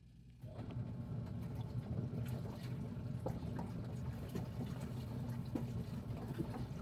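Water running steadily, as from a tap filling a container, over a low steady hum, starting about half a second in, with a few small clicks.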